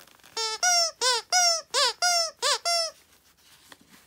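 Squeaker inside a Sharper Image plush game-controller dog toy, squeezed by hand: about eight quick, loud squeaks in a row, each bending up and down in pitch.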